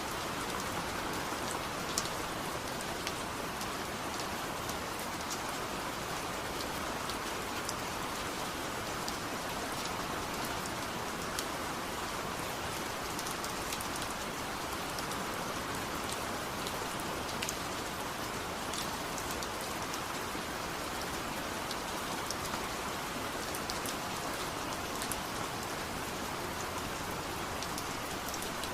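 Steady rain falling, with scattered sharp drips and ticks of drops striking nearby surfaces.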